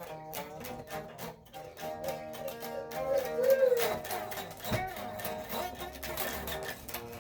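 Music: sustained melodic notes over a steady beat, with no voice.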